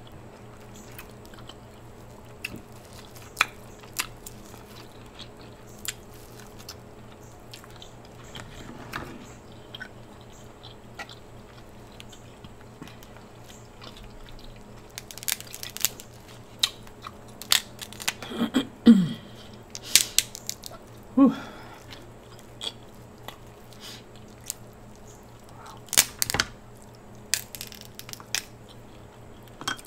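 King crab leg shells being cracked and snapped apart by hand, with scattered sharp cracks and crunches and close-up chewing of the crab meat. The cracks bunch up in the middle, where two short hums from the eater come in, and one more sharp crack falls near the end.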